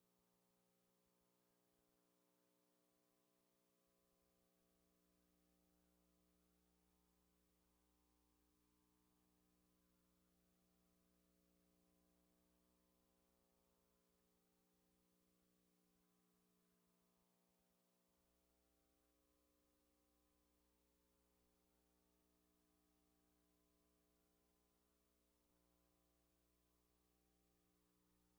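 Near silence, with only a faint steady electrical hum.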